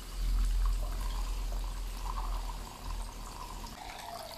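Chili oil pouring from a steel bowl through a wire-mesh strainer into a wok, a steady liquid pour that is loudest in the first second and then eases. The oil is being poured back and forth over the chili flakes to draw out their red colour.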